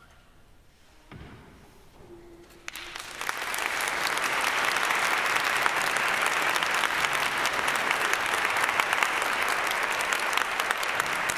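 Audience applauding: after a few quiet seconds, the clapping starts about three seconds in, swells quickly and holds steady.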